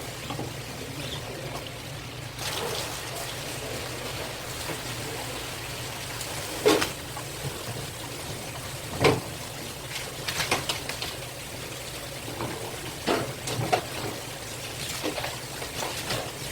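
Water trickling and splashing over a steady low hum, broken by several sharp knocks spread through the middle and later part.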